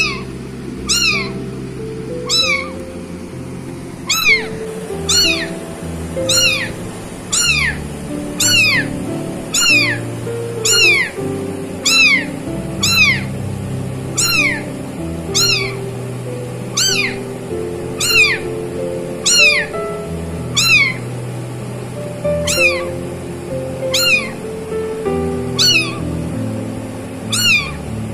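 A very young kitten meowing over and over, about one high, downward-sliding cry a second. Background music plays beneath the meows.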